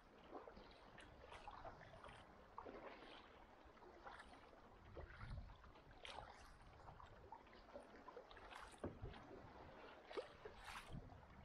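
Faint, irregular splashing of a kayak paddle dipping into the sea, with water lapping along the hull.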